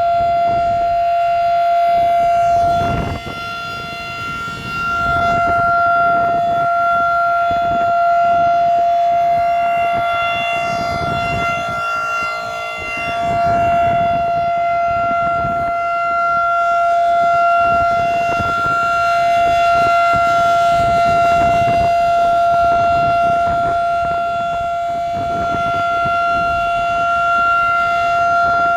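Tornado warning siren sounding one steady tone, its loudness dipping about three seconds in and again near the middle.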